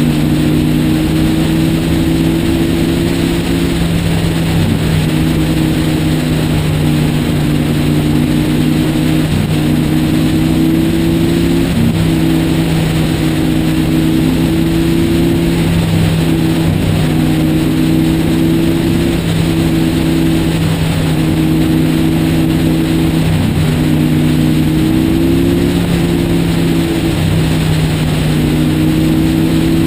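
Motorcycle engine running steadily at highway cruising speed, its note dipping and rising slightly every few seconds, under a steady rush of wind and road noise.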